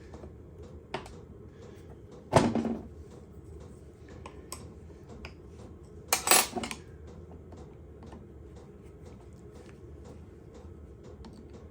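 Metal clanking as a cast-iron cross vise is worked apart by hand, with two louder knocks about two and six seconds in. Faint ticking from a diesel workshop heater runs underneath.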